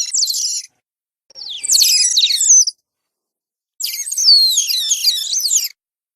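Giant otter giving shrill, high-pitched calls in three bouts of about one to two seconds each, full of quick pitch glides that mostly fall, with dead silence between the bouts.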